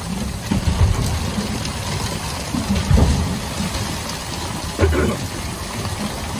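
Heavy rain on the sea and the boat, with wind buffeting the microphone in irregular low gusts, the strongest about three seconds in.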